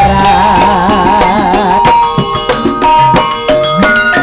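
Javanese kuda kepang (emblek) dance music: drums and percussion struck in a quick rhythm under sustained melody notes, one held with a wide wavering vibrato for about a second and a half near the start.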